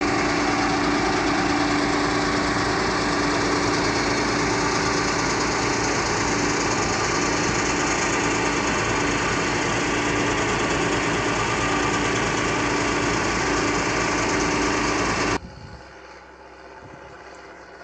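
Fire truck engine running steadily with a constant hum. It cuts off abruptly about fifteen seconds in, leaving a much quieter open-air background.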